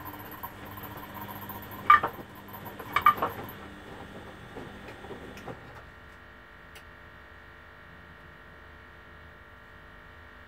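Beko front-loading washing machines tumbling laundry on a delicate wash: the drum motor hums and whines while wet clothes slosh, with two sharp knocks about two and three seconds in. The drum stops about five and a half seconds in, leaving a low steady hum.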